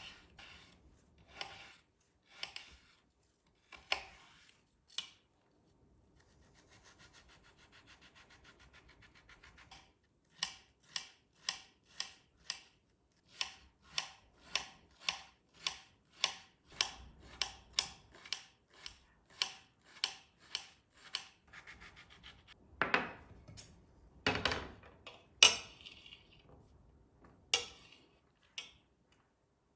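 Repeated hand-made rubbing or scraping strokes: first a fine fast rasp, then a steady run of short strokes, about two a second. A few louder knocks come near the end.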